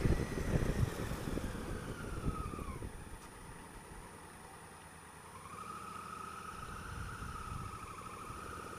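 Honda Africa Twin CRF1000L parallel-twin motorcycle riding in slow traffic, heard from the rider's helmet: engine and wind rumble easing as it slows, with a high whine that drops in pitch, a quieter lull about three seconds in, then the whine rising again and holding as the bike pulls forward.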